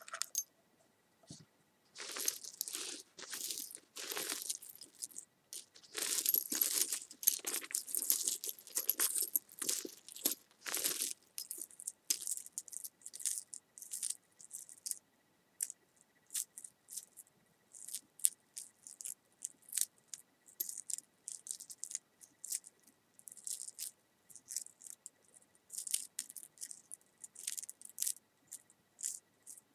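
Close-miked ASMR trigger sounds: irregular bursts of crisp rattling and crinkling for about the first eleven seconds, then sparser, lighter clicks and taps.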